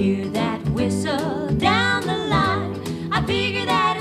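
Country song on the soundtrack: a singing voice over guitar and a steady beat.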